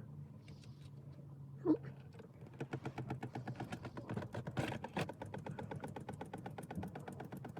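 Ratchet wrench clicking rapidly, about eight to ten clicks a second, as the differential drain bolt is worked loose, with a brief squeak before it.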